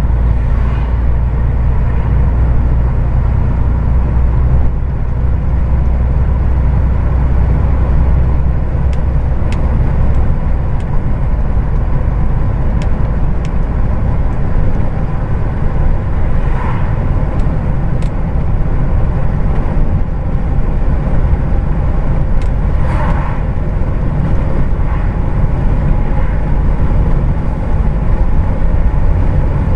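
Heavy truck on the move: a steady low engine drone with road and tyre noise, and a few light clicks and rattles along the way.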